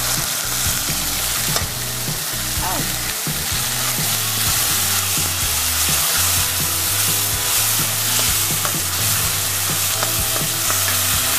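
Ginger-garlic paste and ground spices frying in hot oil with browned onions in a metal kadai, sizzling steadily while a metal ladle stirs and scrapes through them.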